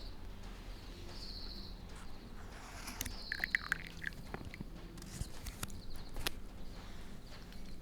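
Outdoor ambience with a bird calling in short, high, repeated chirps, plus a few sharp clicks.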